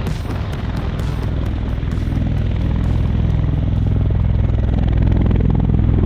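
V-22 Osprey tiltrotor running, its rotors making a fast, even beat over a deep, steady engine drone. The sound grows steadily louder.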